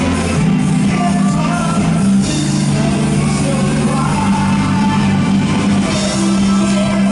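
Loud amplified music with singing, played through a concert's sound system.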